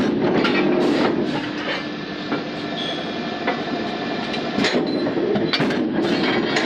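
Forging-shop metalworking machinery running steadily, with scattered sharp metal clicks and knocks over a continuous mechanical hum.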